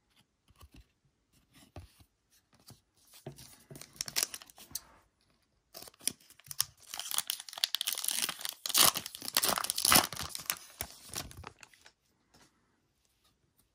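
Shiny foil wrapper of a trading card pack being torn open and crinkled. There is a short spell of crinkling about three seconds in, then a longer, louder stretch of tearing and crinkling that stops about two seconds before the end.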